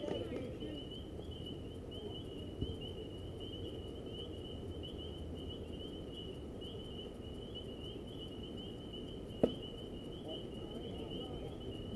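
Steady, wavering high trilling of night insects, with one sharp pop about nine and a half seconds in: a pitched baseball smacking into the catcher's mitt.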